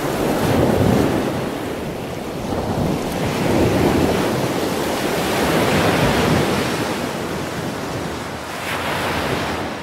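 Ocean surf breaking against rocks, swelling and ebbing in several surges.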